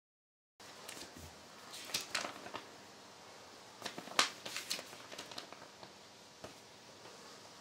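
Paper rustling and crinkling as an instruction sheet is unfolded and handled, in short crackly bursts after a brief silence, over quiet room tone.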